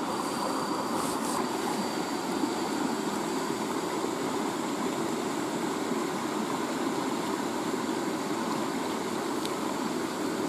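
Small river flowing steadily over rocks, a constant rushing of water.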